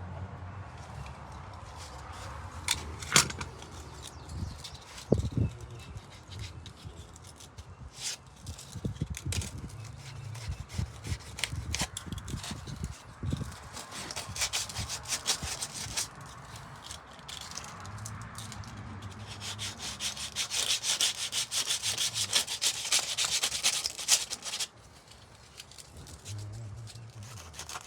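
Hand rubbing and scraping on a Bondo body-filler repair in wooden brick mold, with scattered taps and knocks. Toward the end comes a stretch of fast back-and-forth sanding-like strokes that stops abruptly.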